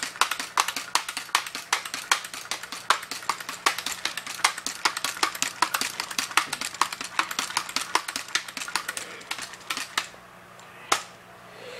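A multi-pump .177 BB gun being pumped over and over to build air pressure: a fast, even run of clacks from the pump lever that stops about ten seconds in, with one more click near the end.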